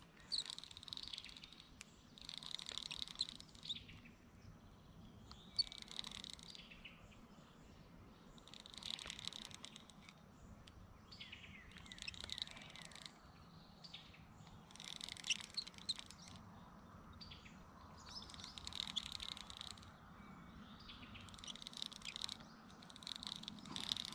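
A songbird singing faintly outdoors, repeating short high-pitched phrases about every three seconds.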